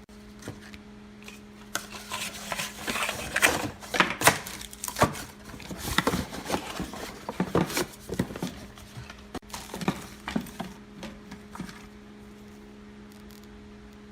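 Plastic packaging and parts of a hard drive docking station being handled during unboxing: irregular rustling, clicks and knocks for about ten seconds. A steady low electrical hum runs underneath.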